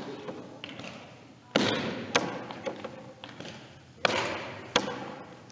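Softball impacts in a large gym: two loud thuds about two and a half seconds apart, each followed a little over half a second later by a sharp smack, with a long echo after each, and a few lighter taps between them.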